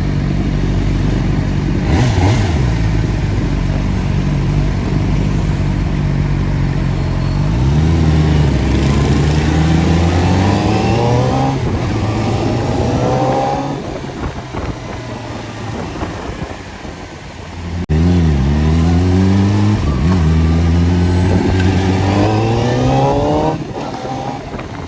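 CFMoto 500SR Voom's 499 cc inline-four engine under way, running steadily at first, then accelerating hard twice, its pitch climbing again and again as it pulls. Between the two pulls it runs more quietly, and the revs drop off near the end.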